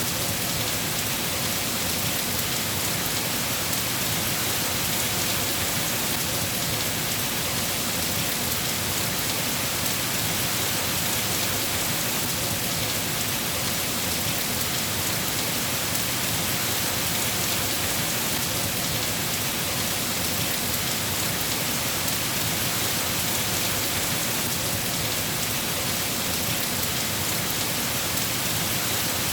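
Steady heavy rain falling on surfaces, a constant even hiss with no breaks or distinct claps.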